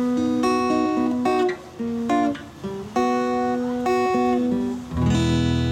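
Steel-string acoustic guitar played solo, without singing: picked chord notes ringing one after another, then a full chord with low bass strings strummed about five seconds in and left ringing. These are the closing instrumental bars of the song.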